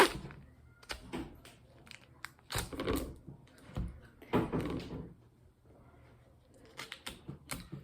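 Kitchen handling sounds: a sharp knock at the start, two short rustling sounds a couple of seconds apart, and a few light clicks near the end.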